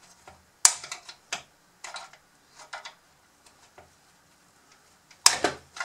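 Hard plastic parts of a Bruder CAT D11 toy bulldozer's chassis clicking and knocking as it is handled and pried at. A scattering of short sharp clicks, the loudest under a second in and another about five seconds in.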